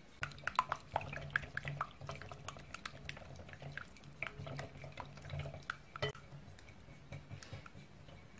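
Wire balloon whisk beating egg yolk mixture in a glass bowl: the wires clink and tick against the glass with a wet swishing, in quick irregular strokes that thin out over the last couple of seconds.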